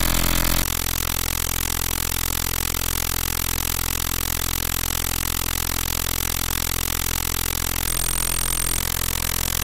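A steady, sustained drone made of several held tones over a humming low end, changing abruptly about half a second in; a brief high-pitched steady tone sounds near the end.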